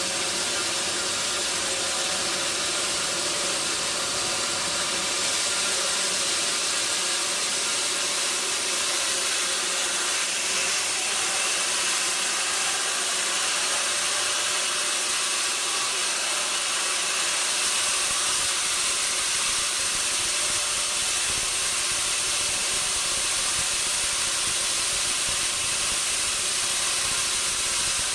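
Sawmill machinery running steadily: a constant hissing machine noise with faint steady tones under it, unchanging throughout.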